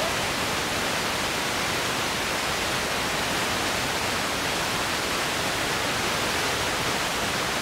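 Steady, even hiss like static, unbroken and unchanging throughout.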